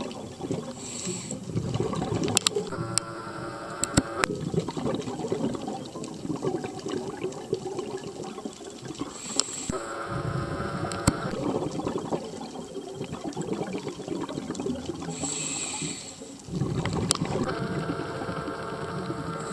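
Scuba diver breathing through a regulator underwater: a short hiss on each inhalation, followed by the bubbling rush of exhaled air. The cycle repeats about every seven seconds.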